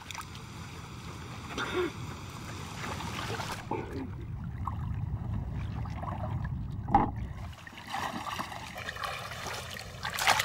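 Seawater splashing and sloshing around a small wooden boat as a bamboo fish trap is hauled up out of the water, with a single sharp knock about seven seconds in.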